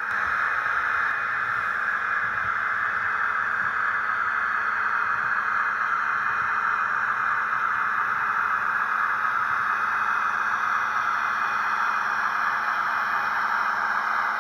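OO gauge model Class 56 diesel locomotive running slowly along the track, making a steady hissing hum that rises slightly about a second in and then holds level.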